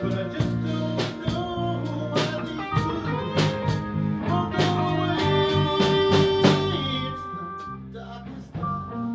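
A blues band playing live, with guitar over bass and drums at a steady beat. The band thins out and gets quieter about seven seconds in.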